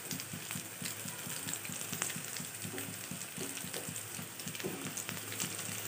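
Soya chaap pieces shallow-frying in hot oil in a kadai: a steady sizzle with scattered small crackles, over a low steady hum.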